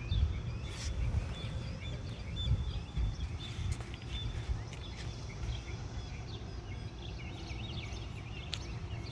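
Small birds chirping and twittering in many short calls over a steady low rumble.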